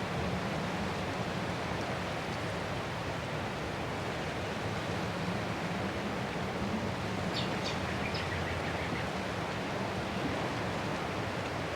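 Ocean surf washing ashore as a steady, even rush of noise without distinct crashes. A brief run of high chirps sounds about seven seconds in.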